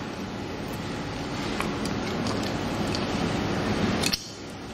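Steady background noise with a few faint light clicks as a plastic traffic-light bracket and its cables are handled; the steady noise drops away abruptly near the end.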